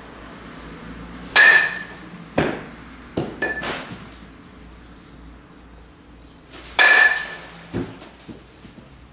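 A metal baseball bat striking a ball twice, about five seconds apart, each hit a sharp ringing ping. Each hit is followed by a few duller thuds as the ball lands.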